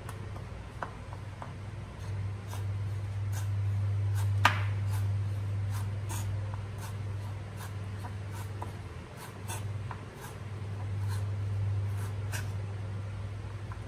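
Chef's knife dicing a yellow bell pepper on a wooden cutting board: uneven knocks of the blade against the board, about two a second, with one louder knock about four and a half seconds in. A steady low hum runs underneath.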